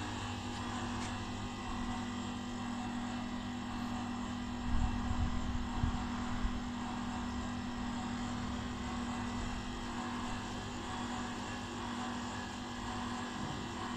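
Planoprint 50 vacuum UV exposure unit running with a steady electric hum, one constant tone over an even mechanical whir, from its vacuum pump and cooling fans while the exposure timer runs. A few low bumps come about five to six seconds in.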